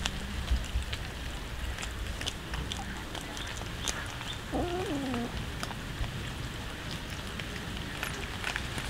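Cats chewing raw fish: scattered wet crunching and clicking, with one short meow about halfway through.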